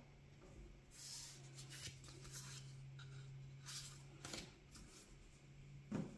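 Faint rustling of Magic: The Gathering trading cards being handled over a cloth playmat: a handful of soft, brief brushes, with a low steady hum underneath.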